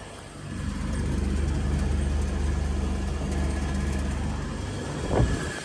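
Large Electra air conditioner's indoor unit running, its fan motor giving a steady low hum that comes up about half a second in and is really noisy. A brief bump near the end.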